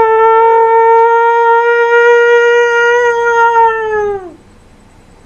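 A man's voice doing an imitation wolf howl: one long howl that rises into a steady held note, then falls away and stops a little over four seconds in.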